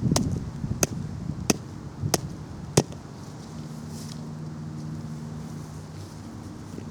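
Hammer beating on a small lipo battery taped to a board: five sharp blows at an even pace, about two-thirds of a second apart, stopping about three seconds in.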